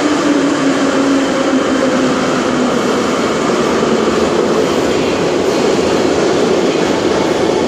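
Steady running noise of an Ezh3 (Em-508T) Moscow Metro train heard from inside the car as it travels through a tunnel: wheels on rail and running gear, with a low hum that dips slightly in pitch and fades about a second in.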